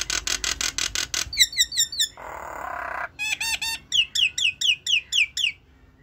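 Common myna calling: a fast run of harsh chattering notes, then quick whistled notes, a harsh rasp about two seconds in, and a series of falling whistles that stops shortly before the end.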